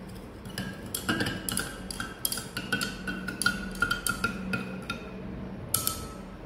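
Glass stirring rod clinking against the inside of a glass beaker while stirring potash alum into water to dissolve it: rapid light taps, about four a second, each with a short glassy ring. The taps run for about four seconds, then there is one last clink.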